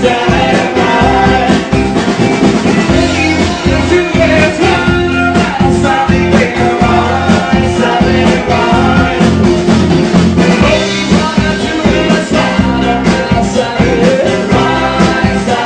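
Live band playing an upbeat song, with singing over a steady drum beat, bass and guitar.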